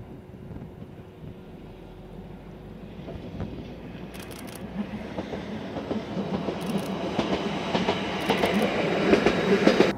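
Fukui Railway electric railcar approaching on single track and passing close by, growing steadily louder. From about halfway its wheels clatter over the rail joints in a quick series of clicks, loudest near the end as the car goes past.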